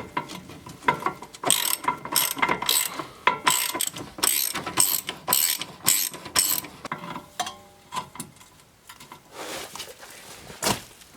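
Hand ratchet wrench clicking in repeated short strokes, about two a second, working the bolts of a Honda Civic's rear camber arm; a single sharp knock near the end.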